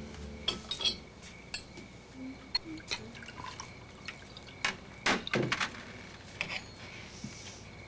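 Crystal decanter and glassware clinking on a silver tray as a drink is poured: a scatter of sharp glass clinks, several close together about five seconds in, with a splash of liquid into a glass.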